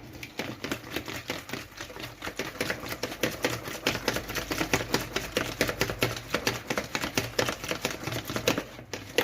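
Eggs being beaten in a bowl: a fast, even clicking of the beater against the bowl, about eight strokes a second, with a brief break near the end.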